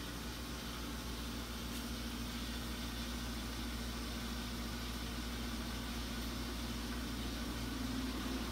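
A steady mechanical hum under a constant hiss, unchanging throughout.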